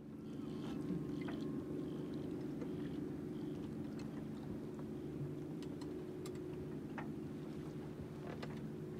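A boat engine running steadily at an even speed, a constant low hum with a few faint clicks over it.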